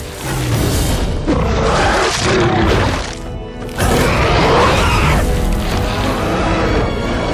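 Film sound effects of a T. rex and a Carnotaurus fighting: two long, loud dinosaur roars, the first about a second in and the second about four seconds in, over dramatic film score with deep rumbling impacts.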